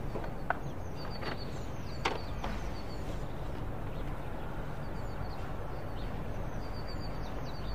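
Steady outdoor background noise with a few faint, scattered bird chirps and several light clicks.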